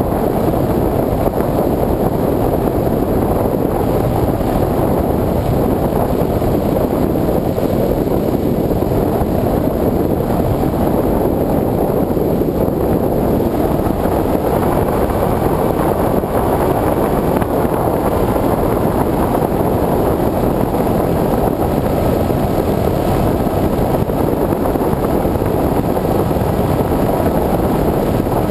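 Low-flying aircraft in flight, heard as a steady, dense rush of air and engine noise on the onboard camera's microphone. A faint, steady high whine joins about halfway through.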